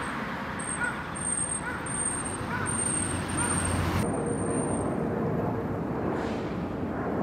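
Street ambience: steady traffic noise with faint short chirps repeating a little faster than once a second and a thin high whine. The sound changes abruptly about four seconds in.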